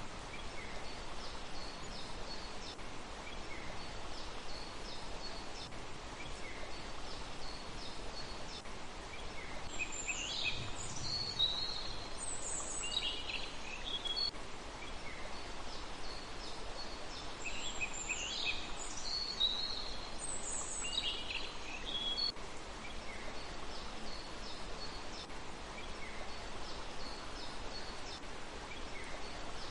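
Small songbirds calling over a steady background hiss: short high chirps repeat throughout, and twice a louder song phrase tumbles down in pitch, about eight seconds apart.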